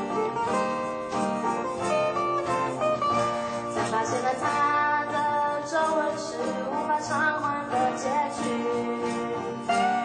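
Live acoustic band playing: two acoustic guitars strummed and picked over a steady cajón beat, with a female voice singing the melody.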